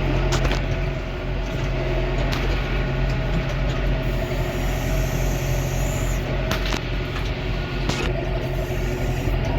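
Farm tractor engine running at a steady speed, with a few sharp clicks or knocks over it.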